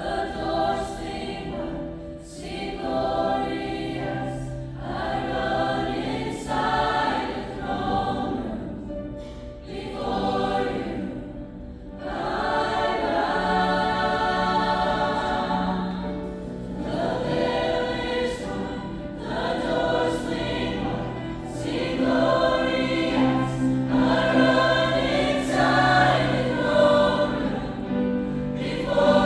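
A choir singing a worship song, with sustained sung phrases over an accompaniment that includes a steady bass line.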